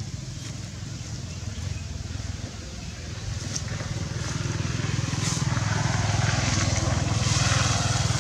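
A motor vehicle engine running, a low steady hum that grows louder through the second half.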